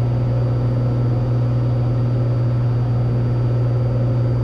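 Cessna 182T's six-cylinder Lycoming engine and propeller droning steadily in cruise, heard inside the cabin.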